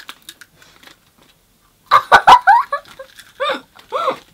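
A girl making short, high, giggly vocal sounds with her mouth full of a crisp: a quick run of them about two seconds in, then two more near the end. Faint crunching clicks of her chewing come before them.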